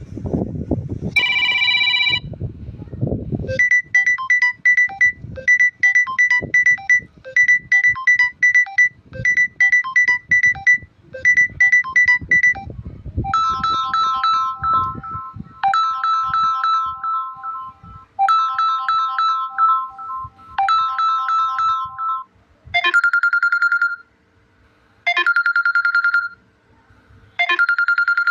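Samsung Galaxy A04s ringtones playing from the phone's speaker. A short chime about a second in, then a short electronic melody repeated several times. A different melody takes over about halfway, and near the end a third one of longer held notes with pauses between.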